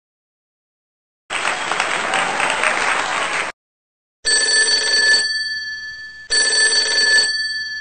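After a second of silence, a couple of seconds of dense noise like applause. Then a telephone rings twice, each ring about a second long with steady high bell tones that fade away.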